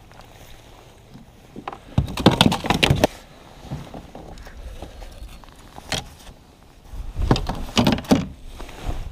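Handling noise in a plastic kayak as a landed bass is lifted aboard and held: irregular rustling and knocking in two loud bouts, about two seconds in and about seven seconds in, with a sharp click near six seconds.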